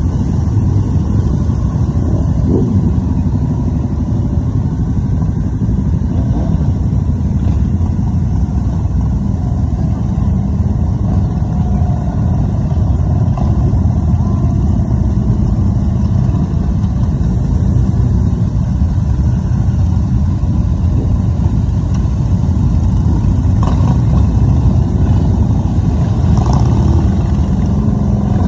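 A long procession of motorcycles riding past, many engines running together in a steady, loud low drone.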